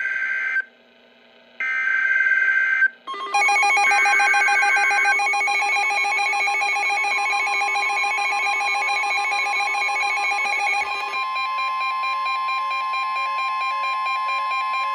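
NOAA Weather Radio emergency alert signal. It opens with two short screeching bursts of digital header data, then a dense, rapidly pulsing electronic alarm from about three seconds in. This gives way around eleven seconds in to the steady, single-pitched warning alert tone that comes before a tornado warning.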